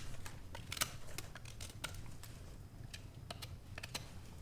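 Carving knife shaving green wood to put a point on a stick: a run of faint, irregular crisp clicks and scrapes as each short cut bites and snaps free.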